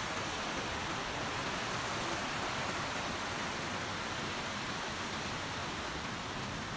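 Steady rushing of a fast-flowing forest stream tumbling over rocks, slowly growing fainter.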